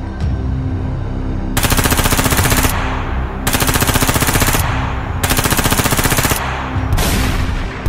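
Machine-gun fire sound effect: several long bursts of rapid automatic fire with short breaks between them, the first starting about a second and a half in, over a low music bed.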